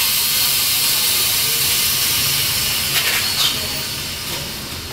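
OCA bubble-remover autoclave (pressure chamber) venting its compressed air, a loud steady hiss that fades away near the end, with a couple of clicks about three seconds in. This is the chamber being depressurised at the end of the debubbling cycle, before it is opened.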